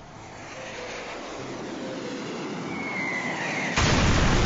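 A rushing noise builds steadily, with a short falling whistle near the end of the build. Then a sudden loud explosion blast hits about a second before the end.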